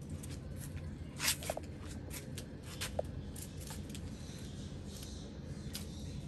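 Rustling and scattered light crackles over a steady low rumble, with a louder rustle just over a second in and two very brief squeaks.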